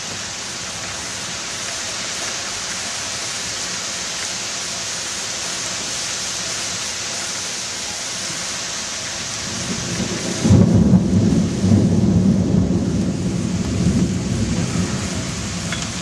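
Heavy thunderstorm rain hissing steadily. About ten seconds in, a sudden loud thunderclap breaks into a deep rolling rumble that goes on for several seconds.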